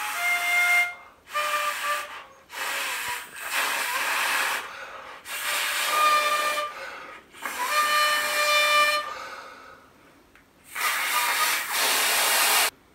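Cheap plastic toy harmonica blown and drawn note by note, each note a second or so long and breathy, with a longer pause before the last one. The harmonica is not tuned to any scale, so the notes come out off.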